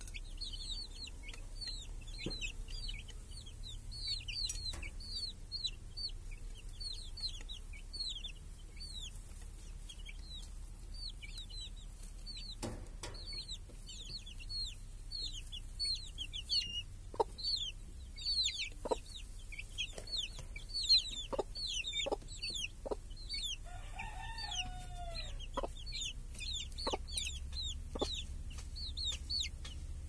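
Domestic chicks peeping nonstop, a rapid stream of high, downward-sliding peeps. Scattered sharp taps come in the second half, and one lower, longer hen call sounds about three-quarters of the way through.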